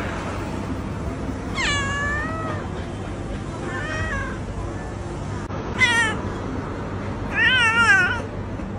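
Tabby cat meowing four times, short separate calls, the last one longer and wavering up and down.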